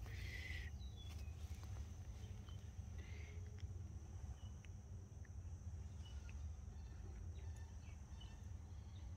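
Quiet garden ambience: a faint, steady high insect drone with a few short, scattered chirps, over a low constant rumble.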